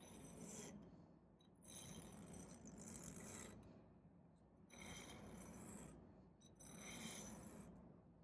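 A broadhead laid flat being stroked across a diamond sharpening stone: faint gritty rasping strokes, each about a second long, with short pauses between them.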